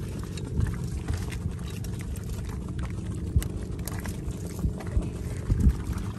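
Small boat engine running steadily, with a few sharp knocks about three and a half and five and a half seconds in.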